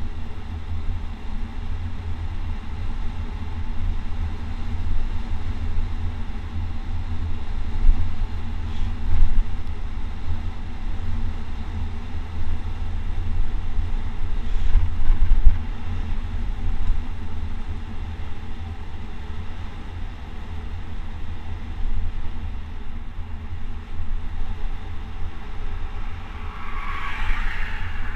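Wind buffeting the microphone with a steady low rumble of road noise during a fast downhill ride. A car passes near the end.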